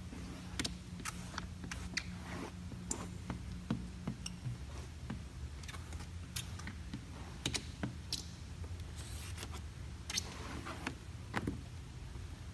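Hand squeegee and hard card scraping across wet window tint film on car door glass: faint, irregular short strokes and ticks over a steady low hum.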